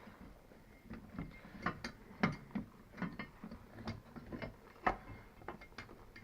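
Irregular light metal clicks and knocks of bolts and seat-mounting hardware being handled and fitted on a motorcycle seat, with two sharper knocks about two and five seconds in.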